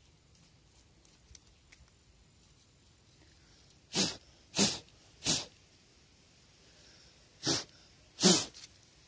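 A trapped snake hissing in five short, sharp bursts, three close together in the middle and two more near the end.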